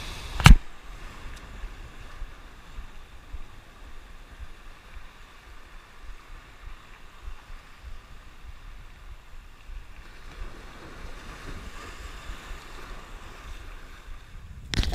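Surf breaking and washing over a rocky shoreline, with wind buffeting the microphone. There is a single sharp knock about half a second in, and a short louder burst near the end.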